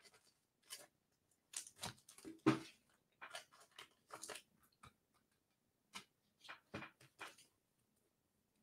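Faint, irregular crinkling and crackling of trading-card packaging being opened and handled, the loudest crackle about two and a half seconds in, stopping near the end.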